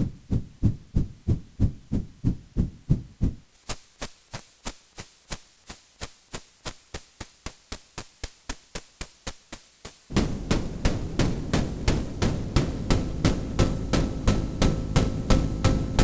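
White/pink noise from a TDA1524-based voltage-controlled tone and noise filter module, chopped by an envelope generator into short rhythmic bursts about three a second, imitating running footsteps. At first the bursts are bass-heavy thuds; about three and a half seconds in the bass drops away and they become crisp ticks, and about ten seconds in a steady low rumble of noise comes in beneath them.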